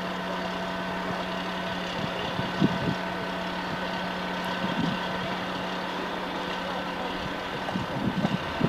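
A crane's engine running steadily at idle, a constant hum with a low tone that drops away near the end. A few faint voices come through in the background.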